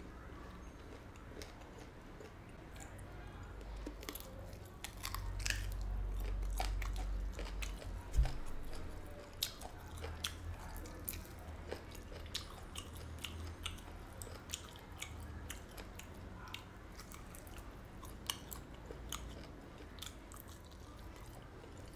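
A person chewing and gnawing a bone-in packaged green-chili chicken foot, with many small sharp crunches and clicks of skin and cartilage. A single dull thump about eight seconds in is the loudest sound.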